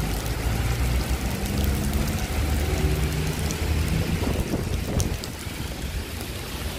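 Heavy rain falling, with scattered sharp drop ticks over a low rumble.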